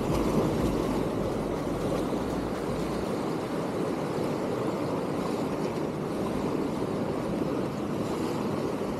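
Surf washing against the rocks of a jetty, a steady rushing. Underneath it a low rumble drops out about three seconds in.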